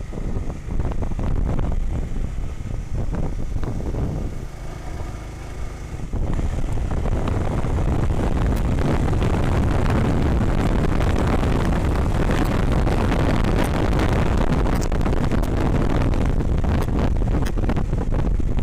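Honda CBR150R single-cylinder engine running under way, heard through heavy wind rush on the action-camera microphone. About six seconds in the wind noise swells and stays loud and steady, drowning out the engine note.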